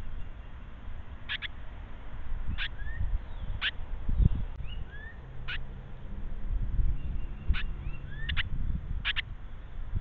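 Carolina wren giving short, sharp chip notes at irregular intervals, some in quick pairs, with a few faint rising chirps between them. Low thumps and rumble on the microphone run underneath, the loudest about four seconds in.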